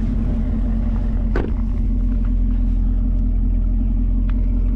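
Camaro SS 1LE's 6.2-litre V8 and road noise heard inside the cabin, a steady low rumble, with one sharp click about a second and a half in.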